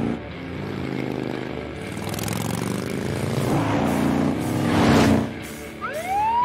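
Motorcycle engine running at speed as the bike passes close by, loudest about five seconds in, then falling away sharply. Near the end a smooth rising whine begins.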